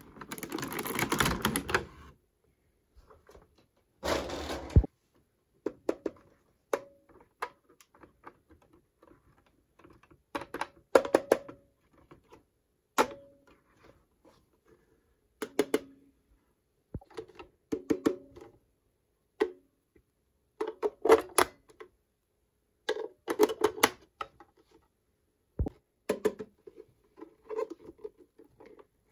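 Small plastic toy appliance parts being handled, with irregular clicks and taps. Rustling in the first two seconds and again briefly around four seconds in.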